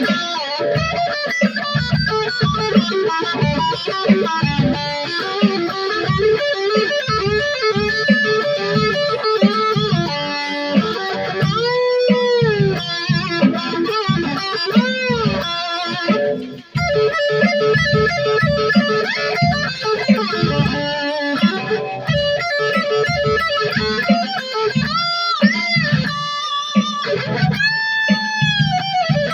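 Custom electric guitar with a Floyd Rose tremolo played unaccompanied: a fast run of picked notes, with several held notes bent up and back down in pitch about midway and again near the end, and a brief break about two-thirds of the way through.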